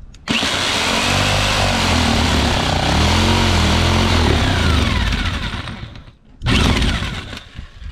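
Handheld power saw cutting a mounting hole along a traced line in the boat's console panel, its motor pitch wavering under load. It stops just after six seconds and runs again briefly.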